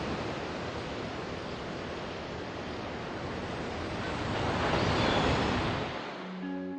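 Sea surf breaking and washing up a cobble beach, swelling into a louder breaking wave about four to five seconds in. A low held musical note starts just before the end.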